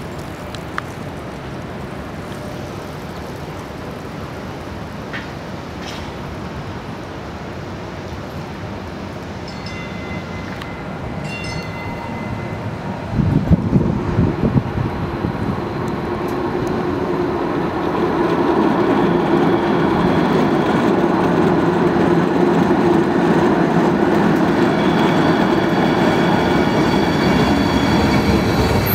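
Kinki Sharyo low-floor light rail vehicle approaching and pulling into the station, its running noise growing steadily louder over the second half with a hum and high whining tones from the motors and wheels. There is a brief loud rumble about halfway through.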